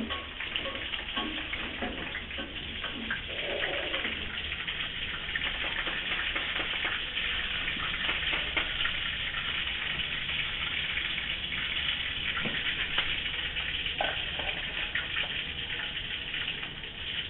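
Tofu frying in hot oil in a wok: a steady sizzling hiss and crackle, with scattered short knocks.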